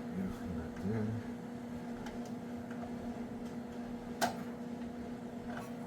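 Light ticks and clicks of hand work on small truck suspension parts over a steady low hum, with one sharp click about four seconds in.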